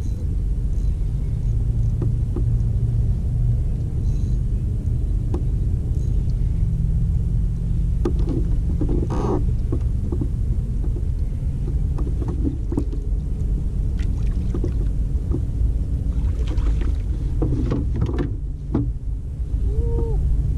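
Steady low rumble picked up on a fishing kayak, with scattered light clicks and knocks of gear on the hull.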